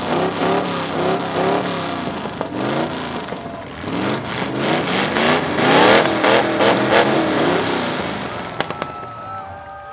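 A car engine revved over and over in quick blips, its pitch rising and falling a few times a second, then fading near the end.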